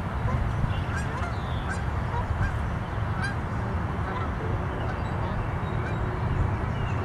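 Outdoor ambience: a steady low rumble with short bird calls scattered through it.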